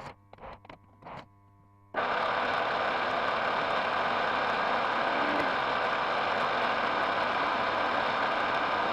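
A few short scraping noises, then about two seconds in a metal lathe starts up and runs with a loud, steady machine noise.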